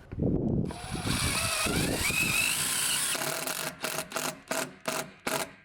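Power drill driving a self-tapping Tek screw through a solar panel's side into an aluminium mounting bracket: a steady run of about three seconds whose whine rises in pitch, then about six short trigger bursts as the screw seats.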